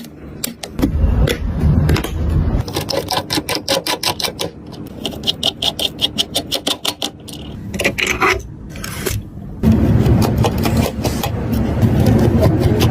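Clicks, taps and scrapes of computer hardware being handled and fitted, with a fast, even run of clicks in the middle.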